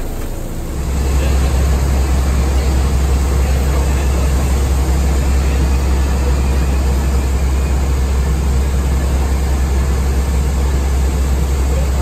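Steady loud drone of machinery on an airport apron beside a parked airliner, with a strong low hum that comes in about a second in and holds unchanged.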